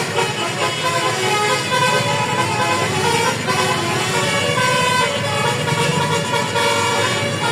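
Indonesian bus's multi-tone musical horn (telolet horn) playing a tune of changing notes, over the rumble of the bus's engine.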